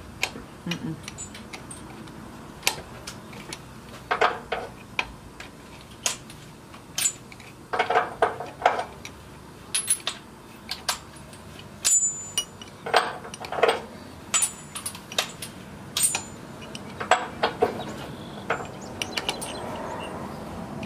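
Metal clinks and clanks from a rusty driveshaft U-joint and the differential's pinion yoke on a 2005 Chevy Silverado, being worked loose by gloved hands and a small metal tool. The knocks come irregularly, several of them ringing briefly.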